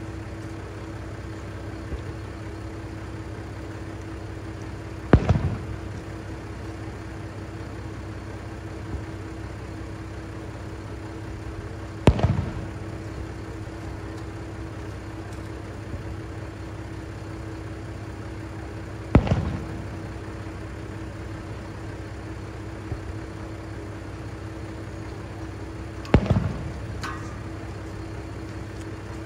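Distant fireworks shells bursting, four sharp booms about seven seconds apart, each with a short rumbling tail. Underneath, the steady hum of the diesel railcar KiHa 3710-02 idling at the platform.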